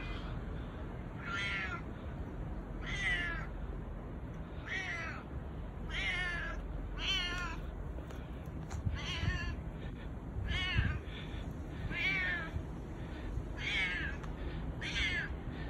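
Stray cat meowing over and over in a husky, hoarse voice: about ten meows, one every second or so, each wavering in pitch.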